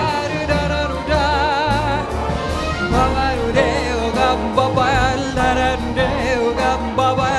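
Live music: a woman sings long, wavering notes into a microphone, backed by a jazz trio of piano, double bass and drum kit and a symphony orchestra, over a steady beat and deep bass notes.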